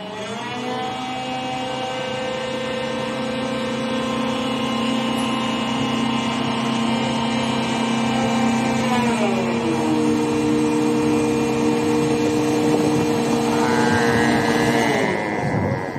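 Heavy-equipment diesel engine revving up and running at steady high revs, its pitch dropping in two steps, about nine seconds in and again near the end.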